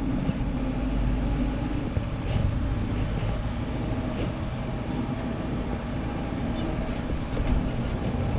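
Kia Bongo 3 light truck driving: a steady engine and road rumble.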